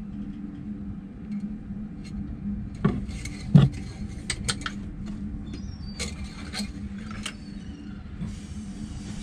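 The metal dipstick of a Nanni HE 4.150 marine diesel is pushed into its tube and drawn out again to check the oil level after an oil change. It makes scattered clicks and knocks, the loudest about three and a half seconds in, over a steady low hum.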